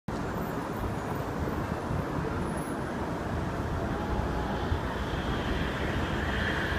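Steady outdoor city ambience: the rumble and hiss of street traffic, cutting in abruptly. A higher steady tone starts to build in over the last couple of seconds.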